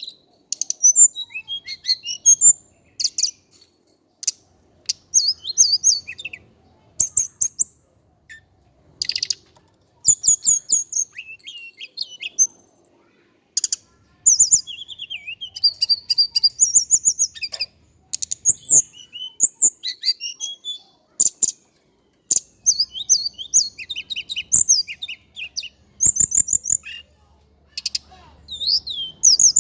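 Hill blue flycatcher singing: phrase after phrase of quick, high, whistled warbles and trills, separated by short pauses.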